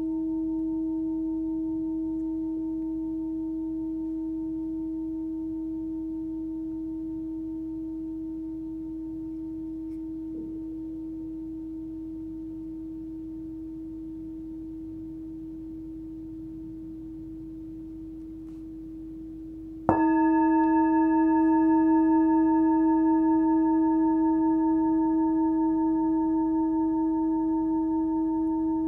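Hand-hammered 14.3 cm Full Moon singing bowl ringing with a fundamental of about 320 Hz, its tone slowly fading. About 20 seconds in it is struck again and rings out louder with extra higher overtones, with a slow wavering in the sound as it decays.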